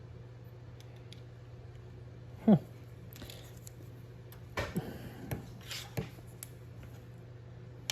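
Small metal clicks and light scrapes of watchmaker's tweezers and tools handling parts of a Seiko 6139 watch movement, a cluster of them between about four and a half and six and a half seconds in. A short loud sound falling in pitch comes about two and a half seconds in, over a steady low hum.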